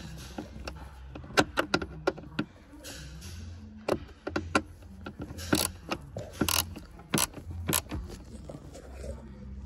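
Socket ratchet with a long Torx bit clicking as it is worked back and forth to undo a glove-box screw: quick runs of clicks in the first couple of seconds, then single louder clicks less than a second apart.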